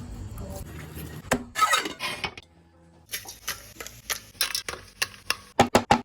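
Kitchen utensils tapping, clinking and scraping against pans and dishes in a string of separate knocks, with a short pause about two and a half seconds in. The taps come quickly near the end.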